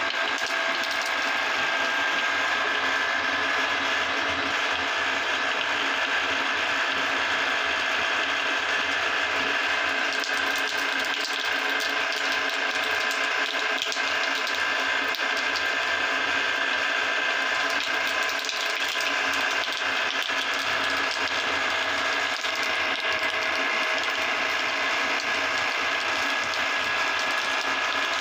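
Metal meat grinder running steadily as it crushes jelly candies, its auger and gearing giving a continuous rattling mechanical noise with a steady high whine.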